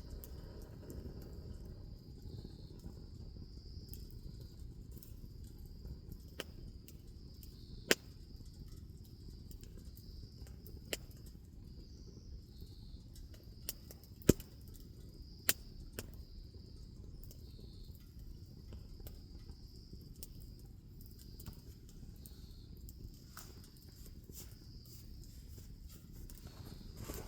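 Wood bonfire crackling, with scattered sharp pops, a few of them loud, over a low steady hiss. Behind it a steady high insect trill runs throughout.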